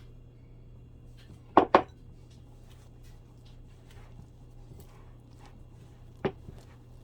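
Kitchen utensils knocking against a dish: two sharp knocks in quick succession about one and a half seconds in, and a single knock near the end, with faint clicks between over a low steady hum.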